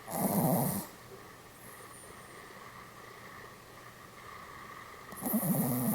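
Pomeranian snoring in its sleep: two snores about five seconds apart, one at the start and one near the end.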